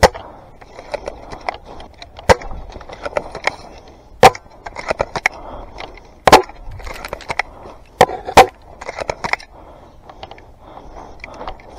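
Dry brush and twigs crackling and snapping against the body and rifle, with several sharp, loud cracks roughly two seconds apart.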